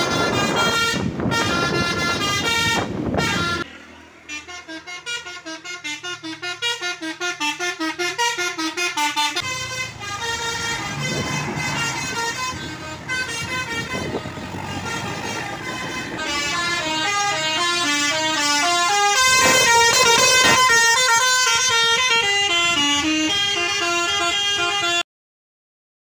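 A Basuri V3 'telolet' musical horn on a tour bus playing a melody of stepping notes, at first over a loud rushing noise that fades after about four seconds. The tune cuts off suddenly about a second before the end.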